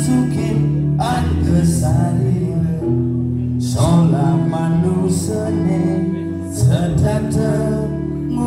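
Band music with a voice singing a melody over guitar and a steady bass line.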